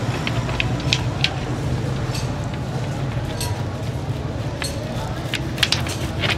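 Scattered sharp clicks and cracks as a hand-rolled multi-disc cutter scores a tray of hardened peanut-jaggery chikki into bars, over a steady low background hum.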